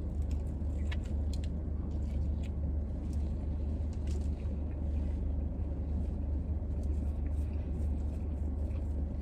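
Steady low rumble inside a parked car, with a few faint clicks scattered through it.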